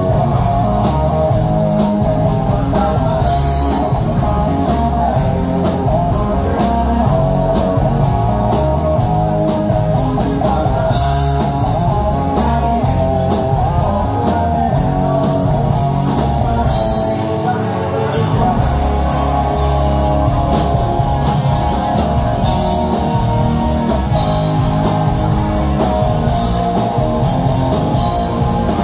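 Live rock band playing loudly: electric guitar, bass guitar and drum kit.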